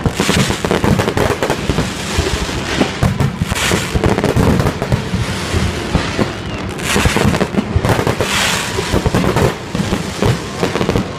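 Fireworks display: a dense, unbroken run of bangs and crackles from shells bursting in quick succession.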